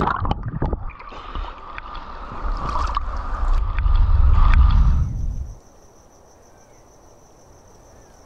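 A low rumbling rush of noise with a steady mid-pitched hum builds up and cuts off abruptly about five and a half seconds in. After it comes a faint, steady, high-pitched insect drone.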